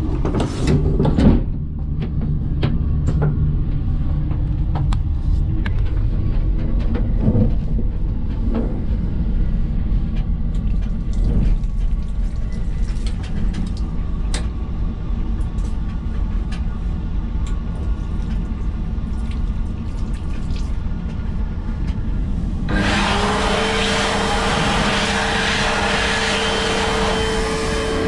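Train rumble in a small toilet cubicle with scattered light clicks. About 23 seconds in, a super-powerful hand dryer blasts on with a loud rush of air and a steady motor whine, then cuts out at the end, its motor pitch starting to fall.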